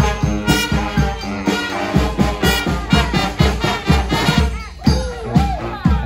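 A brass and percussion street band playing an upbeat tune: horns over a steady drum beat, with jingling percussion. Some notes slide up and down near the end.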